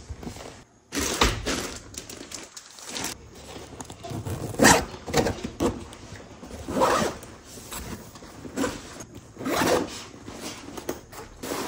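Zippers on an Arctic Fox gamer backpack being pulled, several separate zips, with the rustle of the bag being handled between them.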